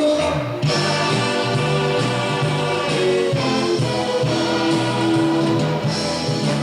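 A band playing live music: sustained chords over a steady bass line, with the notes changing about half a second in.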